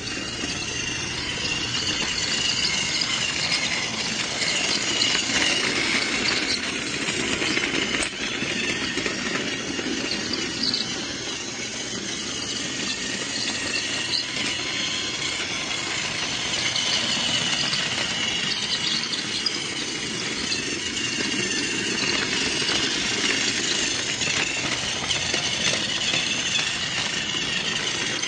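Battery-powered toy train running along its track: a steady whirring of its small motor and gears, with a high whine that grows and fades every several seconds.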